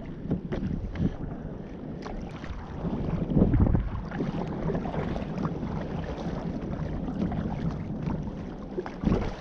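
Wind buffeting the microphone over water sloshing around a fishing kayak at sea, swelling louder about three seconds in.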